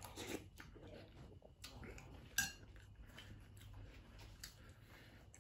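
Faint eating sounds: a metal spoon clinking against a ceramic soup bowl, with the sharpest clink about two and a half seconds in, and soft chewing between.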